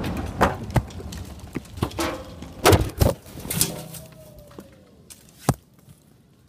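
The fading rumble of an exploding-target blast in a clothes dryer, followed by a scattered series of sharp thuds and clatters as blown-apart debris lands, the last about five and a half seconds in. A faint falling whistle sounds about four seconds in.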